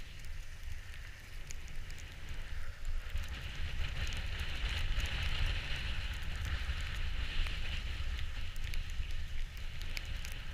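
Hiss of sliding down a snowy ski run, growing louder partway through with scattered crackles, over a steady wind rumble on the microphone.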